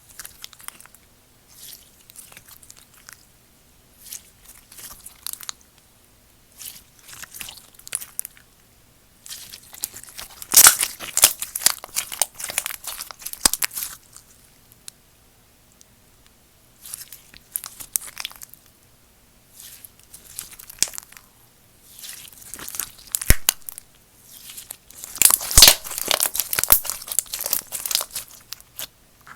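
Slime being squished, stretched and poked by hand, giving bouts of crackly popping and crunching clicks with short pauses between handlings; the loudest bouts come near the middle and near the end.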